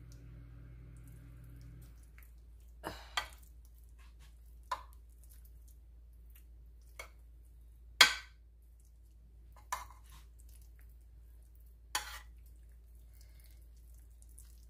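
A metal spoon clinking and scraping against a ceramic baking dish while a ricotta and mozzarella mix is spread, about seven sharp separate clinks, the loudest about eight seconds in. A low steady hum stops about two seconds in.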